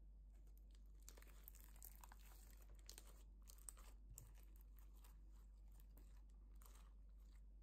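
Clear slime with beads mixed in being kneaded and pressed by hand, giving faint, irregular crackling clicks that are busiest in the first half and pick up again near the end, over a low steady hum.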